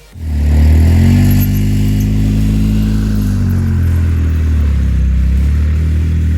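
An engine comes in suddenly and runs steadily with a low, even drone, rising a little in pitch in the first couple of seconds and then settling.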